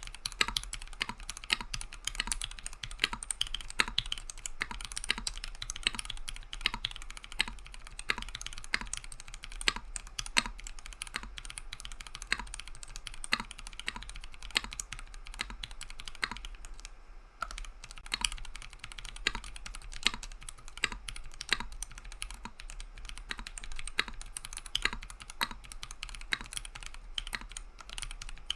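Typing on a Monstargear Sangeo65 mechanical keyboard with lubed Invyr Holy Panda tactile switches and PBT keycaps: a fast, irregular run of keystrokes with a short pause about seventeen seconds in.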